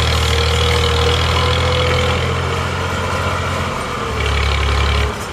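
Tractor diesel engine running under load as it pulls a heavily loaded trolley over a rough track; the engine note shifts about four seconds in.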